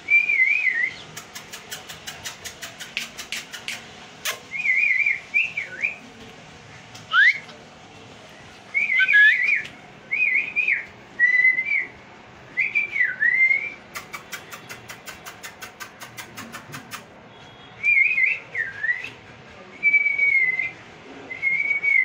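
A person whistling short, warbling phrases again and again to call the Shih Tzu puppies. Twice, runs of rapid, even clicks come between the phrases, about five a second.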